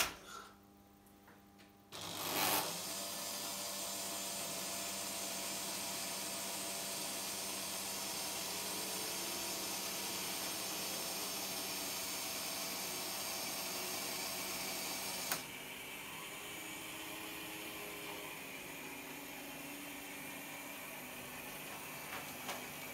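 Analog Märklin H0 model locomotive motors whirring steadily as trains run on the layout. The whirr starts sharply about two seconds in after a click. A second click comes near the middle, after which the sound is a little quieter and less hissy.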